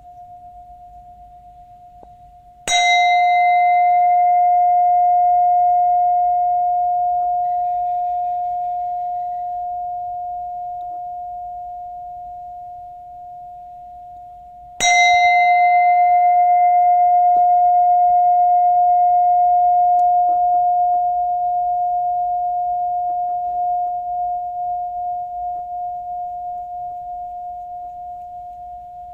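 A Buddhist bell struck twice, about twelve seconds apart. Each strike gives a sharp onset and a clear steady tone with bright overtones that fade within a few seconds, while the main tone rings on and dies away slowly, wavering slightly near the end. The tail of an earlier strike is still ringing before the first stroke.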